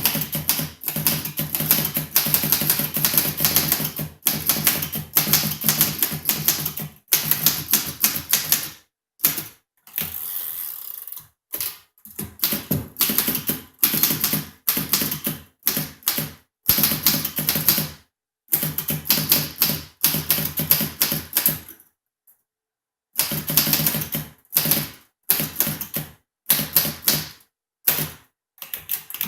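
1934 Underwood Junior manual portable typewriter being typed on: runs of rapid key strikes with short pauses between them, and one longer silent pause about three-quarters of the way through. The machine is freshly serviced and adjusted, and types very well.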